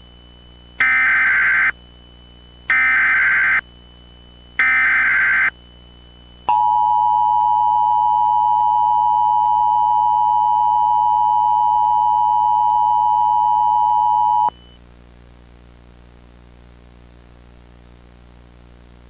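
Emergency Alert System tones: three one-second bursts of SAME header data tones, each about a second apart, carrying the coded alert. About a second later comes the EAS two-tone attention signal, a steady dual tone held for about eight seconds that cuts off suddenly, announcing the voice warning that follows.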